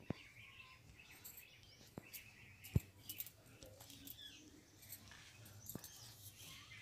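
Faint background with small birds chirping, and a few sharp clicks from fingertips tapping a phone's touchscreen keyboard, the loudest nearly three seconds in.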